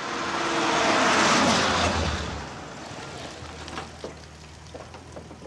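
A motor vehicle passes by. It grows louder to a peak about a second in, its pitch drops, and it fades away.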